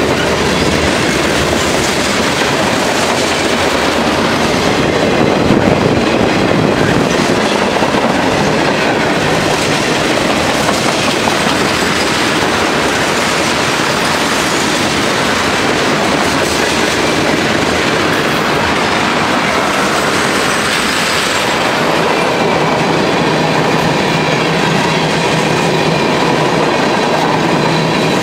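A CSX mixed freight train's hoppers and tank cars rolling past close by at speed: a loud, steady noise of steel wheels running on the rails that carries on without a break.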